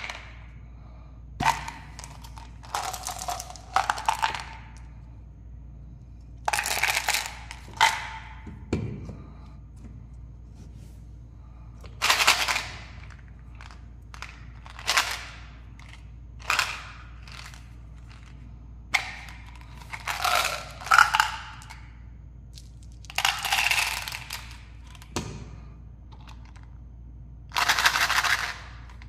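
Hands handling plastic candy bottles: flip-top lids of Mentos gum bottles clicking open and the hard-coated pellets rattling against the plastic. The sounds come in separate short bursts every couple of seconds.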